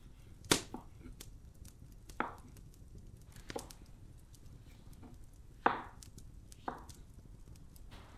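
Knife chopping on a wooden cutting board: five sharp, unevenly spaced strokes a second or two apart, the first and fourth the loudest.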